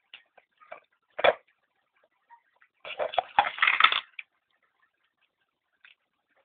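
Malunggay (moringa) leaves rustling and stems snapping as they are stripped by hand. Scattered small snaps, one sharper crack about a second in, and a dense crackling rustle lasting about a second around three seconds in.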